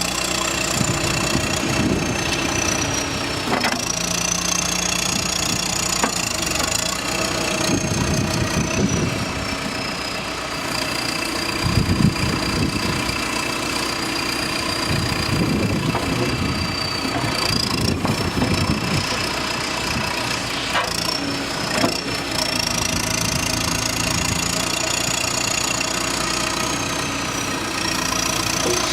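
2008 John Deere backhoe loader's diesel engine running steadily, with a high whine that slowly rises and falls in pitch. Several stretches of louder low working noise come through, around two seconds in, between eight and ten seconds, at twelve seconds, and from fifteen to nineteen seconds.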